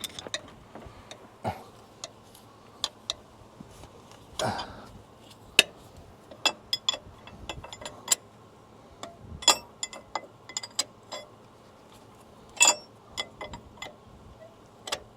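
Wrench clicking and clinking irregularly on the mounting bolts of a truck engine's air compressor as they are worked loose.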